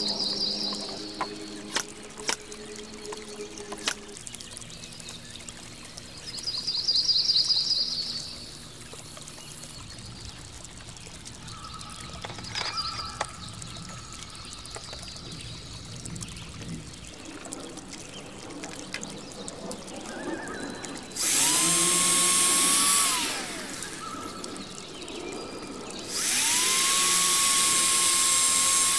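Corded electric drill boring into the wooden top of a deck post, with a steady motor whine. It runs in two goes: a short run about two-thirds of the way in that winds down, then a longer run near the end.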